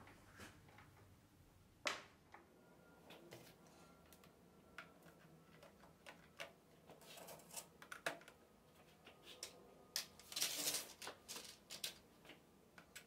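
Scattered light clicks and taps of small hardware being handled and set down on a cardboard-covered table, with a sharper knock about two seconds in and a quick flurry of clicks and rustling around ten seconds in.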